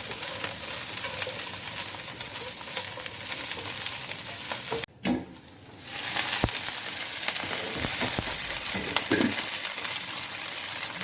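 Chopped capsicum and cabbage sizzling in hot oil in a pan, with a few light clicks. The sizzle drops away for about a second near the middle, then comes back louder.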